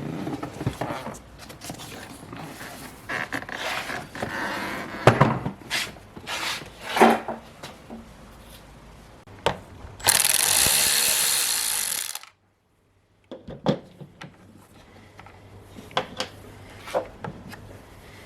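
Hand tools and parts being worked while the heater core is freed from the dash: scattered clicks, knocks and rattles of metal and plastic. Near the middle comes one loud rushing burst of about two seconds, followed by about a second of dead silence.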